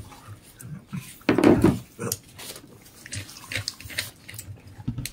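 Eating noises: chewing and mouth sounds, with small clicks and rustles, and one louder, fuller sound lasting about half a second near the start.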